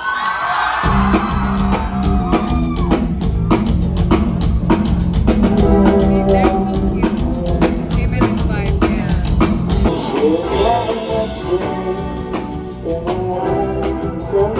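A live rock band starting a song: about a second in, drums, bass and electric guitar come in together and play on with a steady beat.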